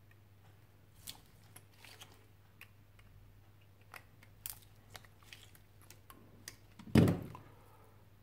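Small metallic clicks and scrapes of needle-nose pliers gripping and working at the steel end cap of a Samsung 18650 lithium-ion cell. About seven seconds in there is a single loud thump as a tool is put down.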